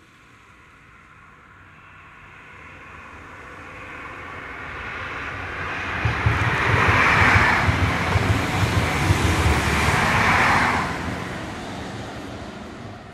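An East Midlands Railway HST (Class 43 diesel power cars with Mk3 coaches) passing at speed. It grows from a distance, is loudest in two surges about three seconds apart as the train goes by, with a low rumble of wheels on rail between, then fades away.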